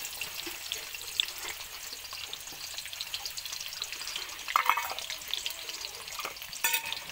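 Sliced onions sizzling and crackling in hot coconut oil in a pan, just after being tipped in. Two brief, louder clatters stand out, one a little past the middle and one near the end.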